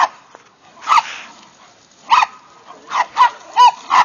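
Chihuahuas yapping in short, high barks during a scuffle with a bulldog: one bark about a second in, then a quick run of four near the end.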